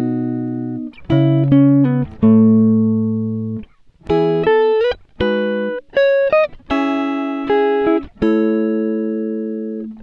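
Background music: a plucked-string melody, guitar-like, of single notes and short phrases, each note starting sharply and fading, some sliding in pitch.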